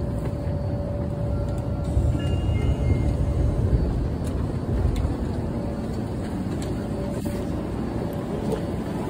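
Subway train car running, heard from inside a packed carriage: a low rumble with a faint steady whine, loudest a few seconds in, with clothing brushing against the microphone.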